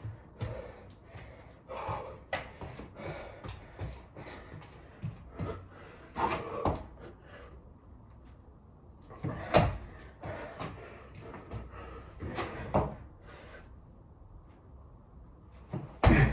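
Irregular thuds, slaps and scuffs from a person doing burpees with push-ups: hands and shoes landing on an exercise mat laid on a hard floor, with a few heavier landings several seconds apart.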